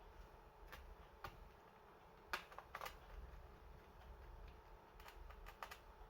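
Scattered small, sharp clicks and taps over a faint low hum, the sound of hands handling a laptop's case and parts during a hardware repair. The loudest click comes a little past two seconds in, and several more follow close together near the end.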